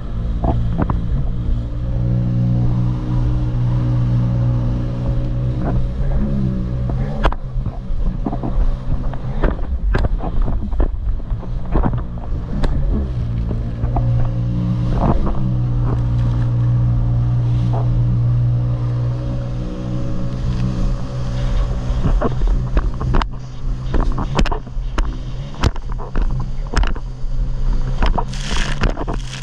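Jet ski engine running at speed with a steady drone; its pitch dips twice as the throttle eases and comes back up. Frequent sharp knocks and splashes of the hull hitting the waves ride on top, thickest near the end.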